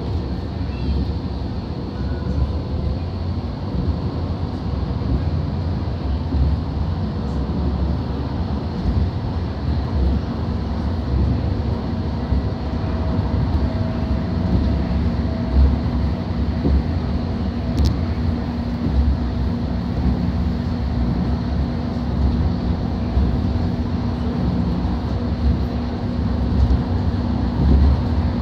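Interior of an Alstom Citadis Spirit light-rail car running steadily between stations: a continuous low rumble of wheels on rail, with a faint motor whine rising in partway through and one sharp click near the middle.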